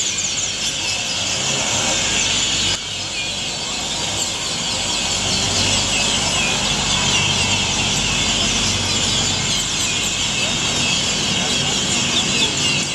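A large flock of birds chattering as they gather to roost at dusk: a dense, unbroken mass of overlapping high chirps and squeaks, over the low hum of city traffic.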